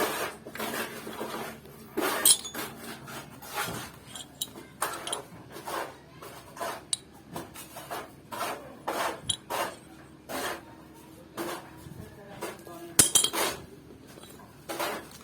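Metal tools and small metal parts clinking and clanking irregularly as they are handled and set down during work on a scooter's front brake, with a sharp ringing clank about 13 seconds in.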